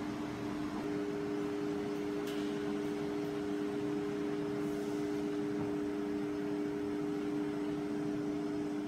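Holztek PRO-R4F four-head CNC nesting router running: a steady mechanical hum with one constant tone, joined about a second in by a second, slightly higher steady tone, over an even rush of noise.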